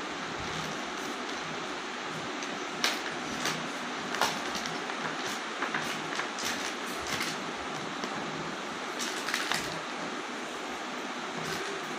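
Light taps, clicks and rustles from a baby handling a stiff picture book and small plastic toys, scattered over a steady background hiss.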